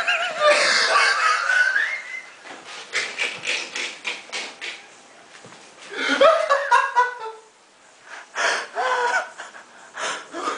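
People laughing, half-stifled: a high, rising squeal of laughter at the start, then quick breathy bursts, with fresh outbursts about six seconds in and again about two seconds later.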